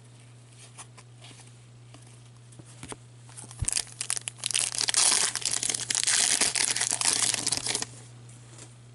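A foil hockey card pack wrapper (2015-16 Upper Deck Series 2) being torn open and crinkled by hand. A few light handling clicks come first, then about three seconds of loud crinkling and tearing from around the middle.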